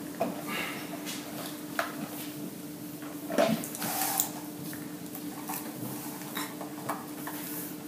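Plastic drink cups with ice being handled and set on a tabletop: scattered light knocks and clinks, a couple of them stronger about halfway through.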